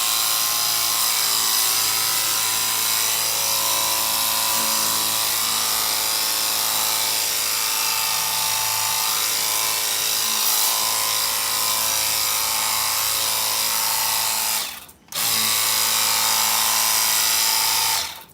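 KONGISS cordless pressure washer running: the whine of its battery motor and pump with the hiss of the water jet. The trigger is let go briefly about 15 seconds in, pulled again, and released just before the end.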